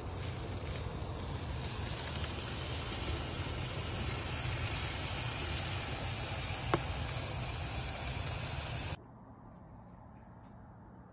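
Beef steak sizzling as it sears: a steady hiss with one sharp pop about two-thirds of the way in, cutting off suddenly near the end.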